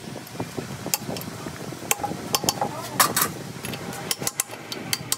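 Hammer tapping a steel punch against a truck differential carrier at its side-bearing adjuster: a dozen or so irregular, sharp metal taps and clinks, coming quicker in the second half.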